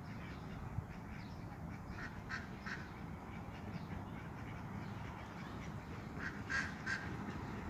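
Geese giving short calls, a few about two to three seconds in and a second group near the end, over a steady low background rumble.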